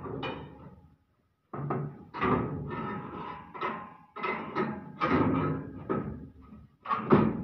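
Metal clanking, knocking and scraping as a Swaraj combine's threshing basket is worked into place inside the thresher, an irregular run of knocks, some with a brief ring. The sound cuts out completely for about half a second about a second in.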